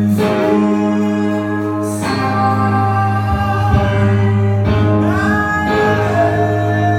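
Live electric guitar music played through effects: long, ringing sustained chords over a steady low drone, changing about two seconds in and again near five seconds, where a note slides up.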